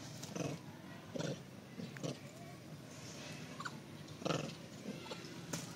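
Long-tailed macaques feeding at a pile of fruit: about five short, sharp noises at uneven intervals, the loudest about four seconds in, over a steady hiss.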